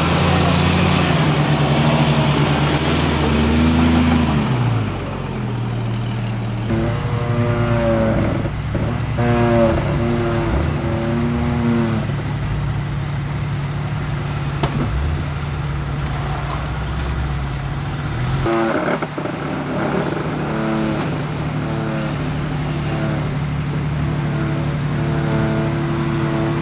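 Off-road Jeep's engine working over rough ground: loud at first, then running steadily with repeated short revs that rise and fall in pitch.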